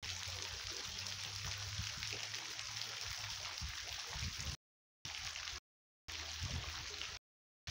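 Flowing, splashing water at a natural pool: a steady rushing hiss with a low rumble underneath. About halfway through, the sound starts cutting out to dead silence, three times, with short bursts of the same rush in between.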